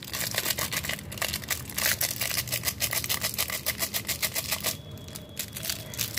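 Plastic sachet of jaljeera powder being shaken and tapped over a bowl of water: a rapid crackly ticking that stops about five seconds in.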